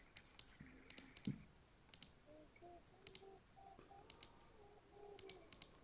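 Near silence: faint room tone with scattered faint clicks and a soft thump about a second in.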